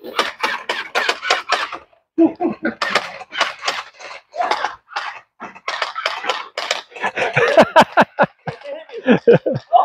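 Gel ball blasters firing in rapid bursts of sharp clicking shots, about five a second at first and more ragged later. Someone laughs near the end.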